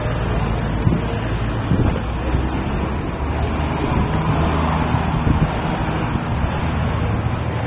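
Steady road-traffic rumble with a low engine hum running throughout.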